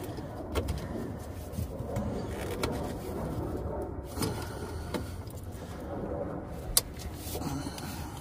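Gloved hands working the plastic quick-connect hose fittings onto the ports of an EVAP charcoal canister: handling and rubbing noise with a few light clicks, then one sharp snap near the end as a fitting clicks into place.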